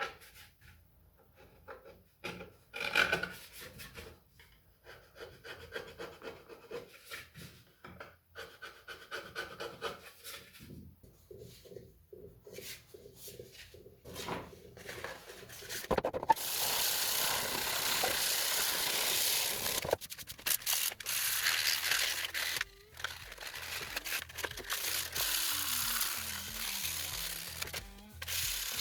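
Short rubbing strokes of sanding on a 3D-printed PLA part, then from about halfway a louder steady hiss of spraying that stops and starts a few times.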